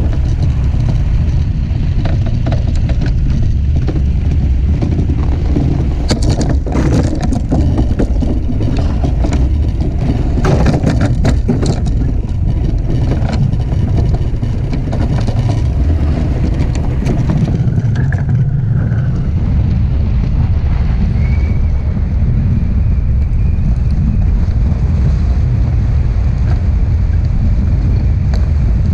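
DN iceboat's steel runners rumbling over the ice at speed, a loud steady low roar with wind on the microphone. For several seconds, starting about a fifth of the way in, rapid crackling and clicking rides over it as the runners cross rougher ice.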